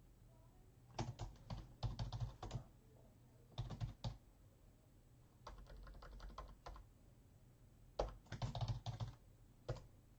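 Typing on a computer keyboard in several short bursts of rapid key clicks, with pauses between them and a last single keystroke near the end.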